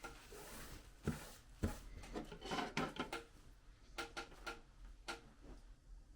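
Light clicks, taps and rubbing from hands handling and setting down small laptop parts on a work surface, with a brief scraping rub in the first second and scattered sharp knocks after.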